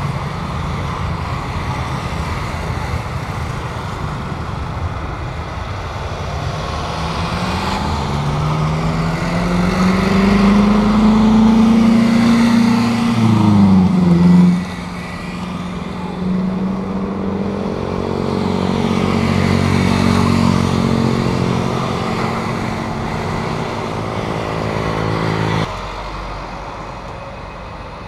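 Jet airliner passing close by with its engines running loudly. About halfway through, the engine tone rises and then drops sharply in pitch as it goes past. A steady engine sound follows and cuts off abruptly near the end.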